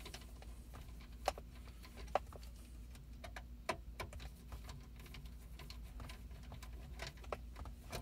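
Faint, irregular small clicks and taps of a T9 Torx screwdriver and screws on the metal hard-drive bracket of a BMW CIC infotainment unit, with a few sharper clicks about a second, two seconds and three and a half seconds in, over a low steady hum.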